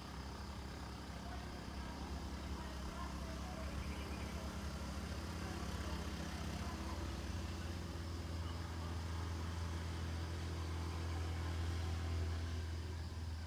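Low steady engine hum that slowly grows louder, with faint voices in the background.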